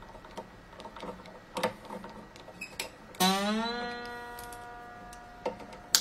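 Small clicks of a Martin acoustic guitar's tuning machine being wound. About three seconds in, a steel string rings out, its pitch rising briefly as the tuner tightens it, then holding and fading. Just before the end, a sharp snip as wire cutters trim the string's end at the headstock.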